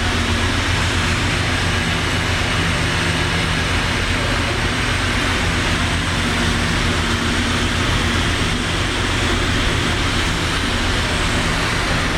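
TIG welding arc on steel pipe during the hot pass: a steady hiss over a constant low electrical hum from the welding set, unbroken throughout.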